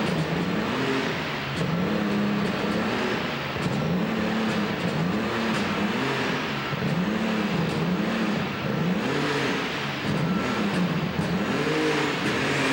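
Methanol-burning light super stock pulling tractor's engine revved up and down over and over, about once a second, as it sits staged at the starting line before the pull.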